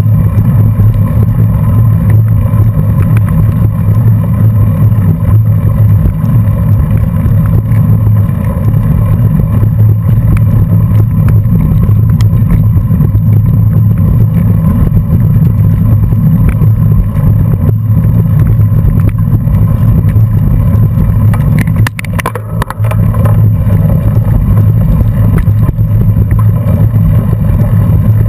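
Loud, steady low rumble of wind and road vibration on a bicycle-mounted camera's microphone while riding in a pack. It drops briefly about three-quarters of the way through, with a few clicks.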